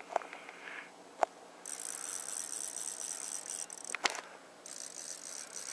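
Fly reel's clicker drag buzzing as line is pulled off the spool, in two stretches of about two seconds each that start and stop abruptly. A few sharp clicks come in between.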